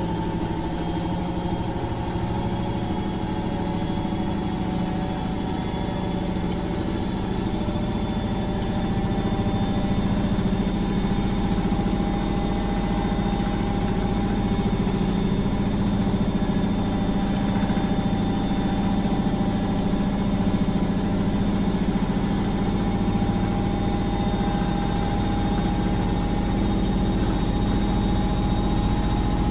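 Washing machine running: a steady motor hum and drum rumble with a thin whine over it, getting a little louder about nine seconds in.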